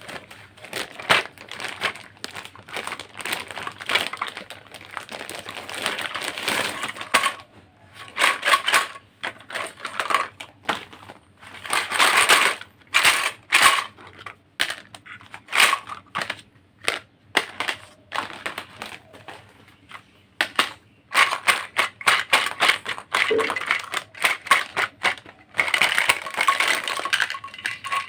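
Plastic toy food and toy kitchen pieces being handled and cut: irregular clicks, clacks and short crackly scraping sounds, with brief pauses between bursts.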